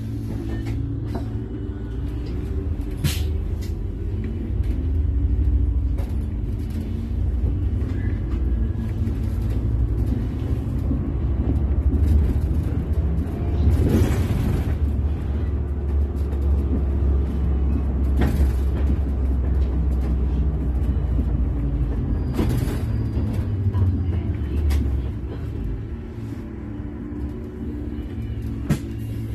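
Inside an Iveco Urbanway 18M articulated city bus under way: a steady low engine and drivetrain rumble with gliding tones as the bus changes speed, and a few short hisses. The rumble eases near the end as the bus slows.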